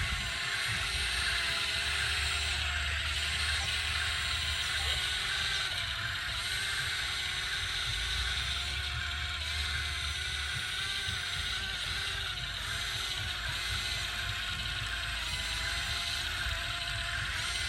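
Yigong YG258C excavator running steadily: a continuous machine drone with wavering tones over a hiss, and a low rumble that swells in stretches.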